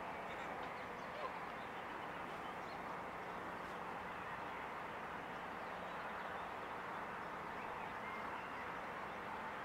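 Canada geese calling during the display right after mating, over a steady background hiss.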